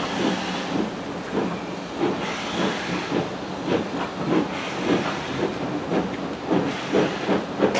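Steam locomotive working slowly: its exhaust beats come about twice a second over a steady hiss of steam.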